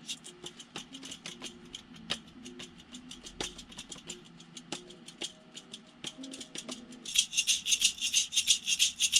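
Hand shaker played in a steady rhythm, quiet at first over faint notes of a beat, then shaken much louder with crisp, even strokes from about seven seconds in.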